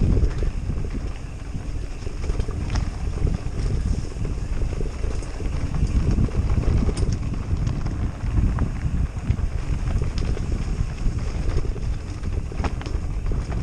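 Wind buffeting the microphone as a mountain bike rolls down a rocky gravel track, with the crunch and rattle of the tyres over loose stones and a few sharp clicks.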